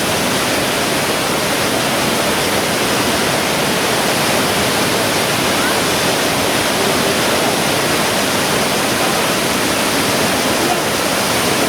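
Waterfall crashing with a steady, loud rush of water.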